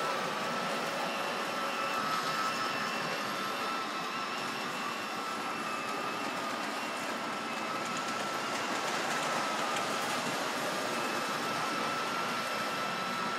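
Lionel model train running on its track: a steady whirring with a faint high whine.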